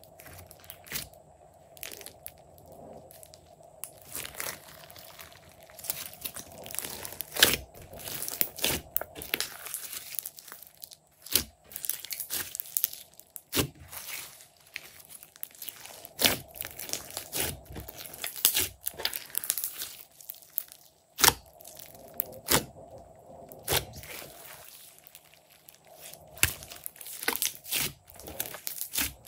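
Hands squeezing, pressing and pulling apart a large mass of clear slime mixed with makeup and clay, giving wet squishing with many irregular sharp pops and crackles.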